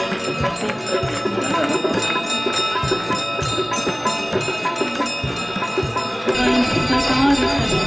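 Many bells ringing on and on during the Ganga Aarti, over devotional music. About six seconds in the music grows louder and a singing voice comes in.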